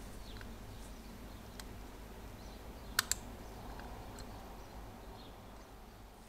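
Small steel flathead screwdriver tip ticking against the metal battery terminals inside a MoonSwatch's empty battery compartment: faint scattered ticks, with a sharper double click about three seconds in. A low steady hum lies underneath.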